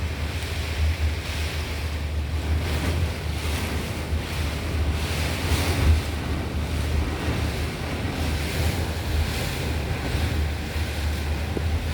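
Hurricane wind blowing in gusts that swell and ebb, with a heavy low rumble of wind buffeting the microphone.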